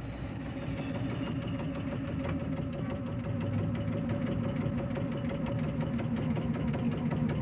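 Pacific Electric interurban electric rail car running along its line, a steady hum under a fast, dense rattling clatter, growing slightly louder.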